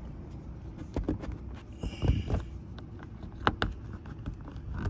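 Irregular clicks and knocks of metal bolts and a hand tool being handled while grille-mounting bolts are put back in, with a dull thump about two seconds in, over a steady low rumble.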